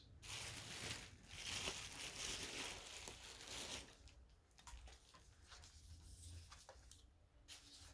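Wrapping crinkling and rustling as it is pulled off a resin ball-jointed doll. The rustle is louder for about the first four seconds, then turns quieter with a few small clicks.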